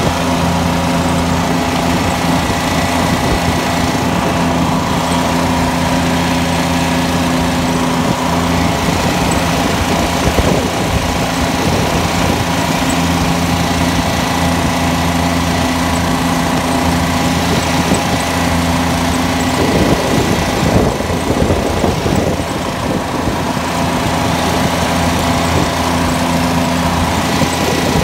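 Kubota G5200 garden tractor's engine running steadily under load while pushing snow with a front blade. Its even note turns rougher for a few seconds past the middle.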